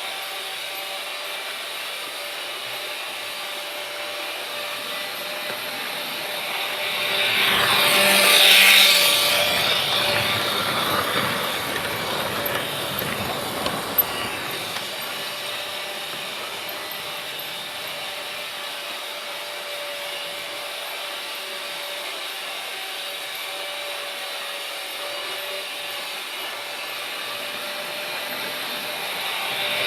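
Freight train rolling by, a steady rushing rumble with a faint steady hum, swelling louder about eight seconds in and easing off, with a single sharp knock a few seconds later.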